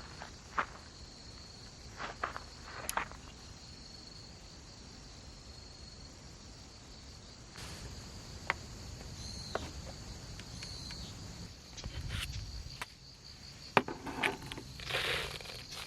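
Insects, likely crickets, trilling steadily at a high pitch, with scattered sharp clicks and a few short bursts of rustling.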